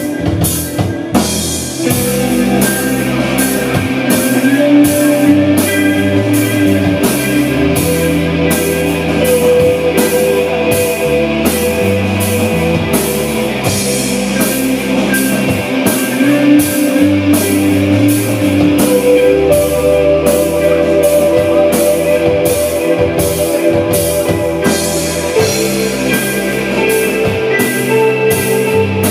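Rock music with guitar and drum kit, the drums keeping a steady beat of about two hits a second under sustained guitar notes.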